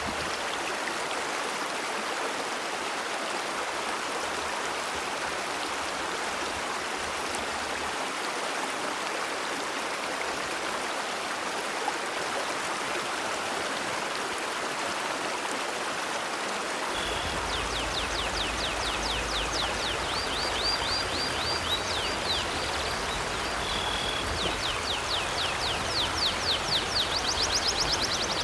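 River water flowing steadily. About halfway through, a bird starts chirping in rapid high runs over the water.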